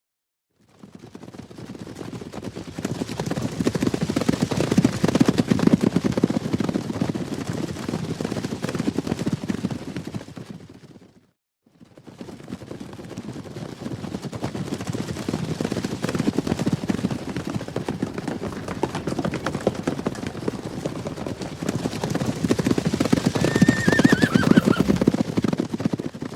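Horses galloping: a dense drumming of many hoofbeats that swells and fades, twice, with a brief break about eleven seconds in. A horse whinnies once near the end.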